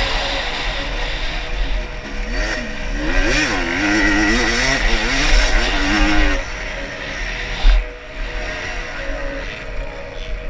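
Motocross dirt bike engine revving up and down under throttle while riding the track, its pitch repeatedly rising and falling, with a short thump about three-quarters of the way through.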